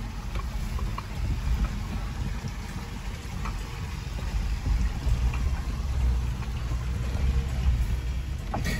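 A 4x4 vehicle driving over a rough off-road track: a steady low rumble of engine and tyres with scattered small knocks and rattles.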